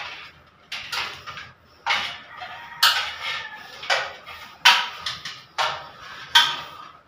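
Electrical wires being pulled hand over hand through a wall conduit into a utility box, a scraping, squeaking rub with each pull, about seven pulls roughly one a second.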